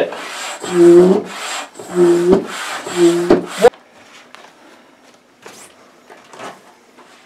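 Stand-up hand pump inflating an inflatable kayak's floor chamber: four strokes about a second apart, each a rush of air with a low hooting tone, cutting off abruptly after three or four seconds. Faint knocks and rustles follow.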